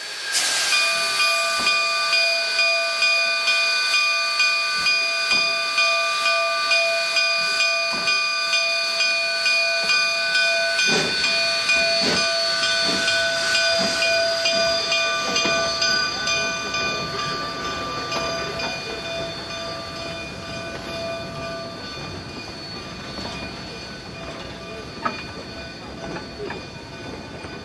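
Cumbres & Toltec K36 No. 484, a narrow-gauge steam locomotive, pulling its train away: its exhaust beats come steadily at about two a second and fade, while the cars roll by. A steady high-pitched whine rings over it, with one sharp knock near the end.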